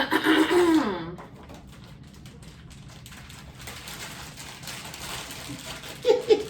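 A person's drawn-out vocal sound with a falling pitch, then a faint, rising hiss, and short vocal sounds near the end.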